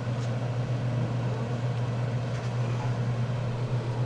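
A fan running with a steady low hum, over a faint even hiss.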